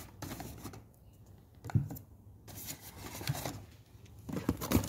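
Cosmetic product packages being taken out of a shipping box and set down one by one. There is a sharp knock about two seconds in, a few lighter taps, and a burst of rustling and clattering near the end.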